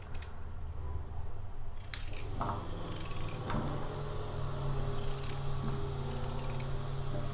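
Small knife cutting a raw white radish into long sticks: a few separate light, crisp cuts and clicks spread out, over a steady low hum.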